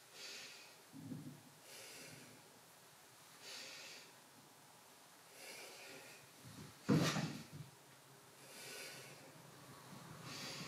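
Faint, slow, audible breathing in and out through the nose, paced with shoulder rotations: a soft breath sound about every second and a half to two seconds. One louder, sharper sound comes about seven seconds in.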